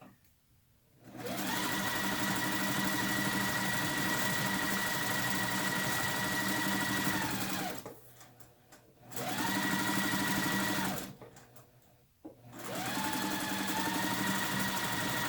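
Electric sewing machine stitching a fabric seam in three runs: a long one of about six seconds, a short one of about two, then another starting about two-thirds in. Each run speeds up as it starts and slows as it stops.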